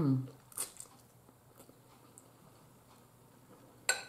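Quiet eating sounds: faint chewing and mouth clicks while eating fettuccine, with a single sharp clink of a metal fork against the bowl just before the end.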